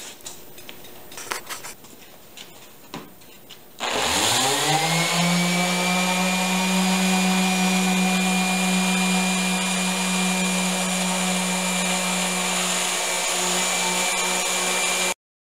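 Electric random orbit sander starting up about four seconds in, its hum rising in pitch for about a second, then running steadily with a high whine as it sands the edges of oak boards; it stops abruptly near the end. Before it starts, a few light knocks and clicks of handling.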